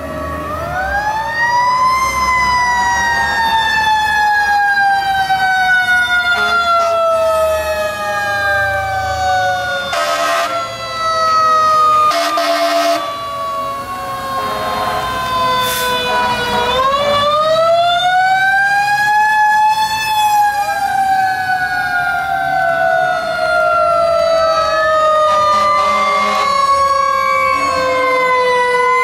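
Fire trucks passing with a wailing siren that twice spins up quickly and then winds down slowly over many seconds, with other sirens sweeping underneath it. Short horn blasts come in about halfway through, over the low rumble of the diesel engines.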